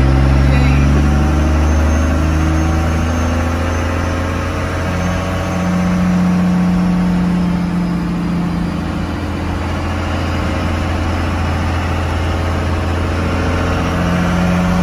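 1959 Chevrolet Viking truck's engine running as the truck is driven, heard from inside the cab, its pitch shifting up and down several times with the throttle over steady road noise.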